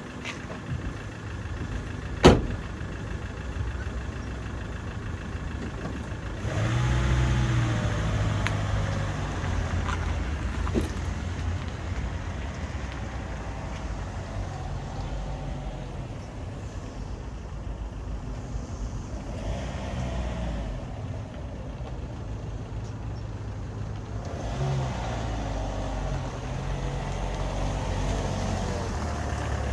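A motor vehicle's engine running, with a single sharp knock about two seconds in. The engine grows louder about six seconds in, with rises and falls in pitch as it pulls away.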